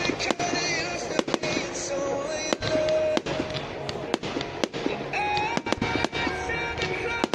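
Fireworks display going off in quick succession: many sharp bangs and cracks, several a second, over music and crowd voices.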